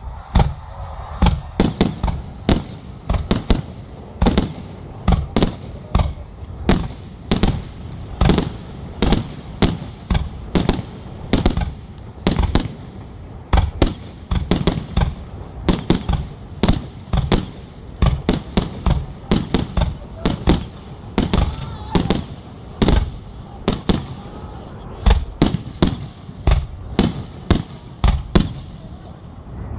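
Aerial fireworks firing shell after shell from one launch point, each bursting overhead with a sharp bang, nearly two bangs a second without a break.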